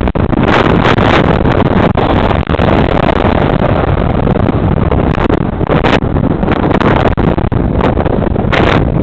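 Loud, steady wind rumble on a bicycle-mounted camera's microphone while riding, mixed with road traffic, including a lorry overtaking close by.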